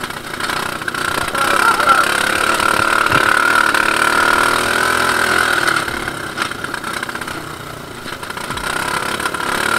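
Engine of an off-road ATV buggy running steadily as it drives along a muddy dirt track, the level dipping briefly about eight seconds in before rising again.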